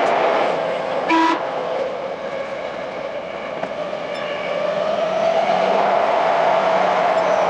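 Sped-up running sound of a Tokyo Metro 10000 series electric train. A steady rumble of wheels and motors carries a pitched whine that sinks and then rises again. About a second in comes one brief, loud, high tone.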